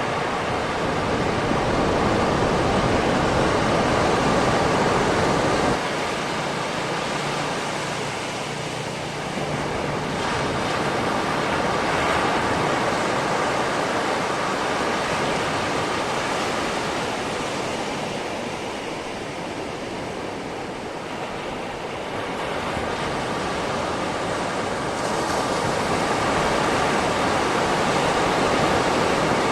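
Calm sea waves washing onto a beach: a continuous surf rush that swells and ebbs slowly as the waves come in, with an abrupt drop in level about six seconds in.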